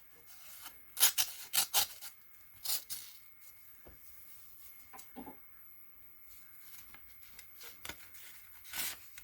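Mailed package being opened by hand: paper or plastic packaging rustling and tearing in a handful of short rips, the loudest about a second in.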